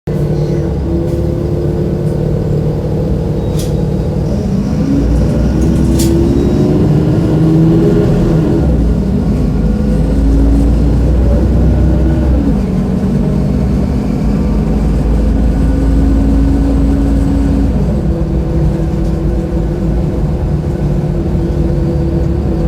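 Mercedes-Benz O-500U city bus's OM-926LA diesel engine running, its pitch rising and falling back several times as the engine speed changes. Two sharp clicks come a few seconds in.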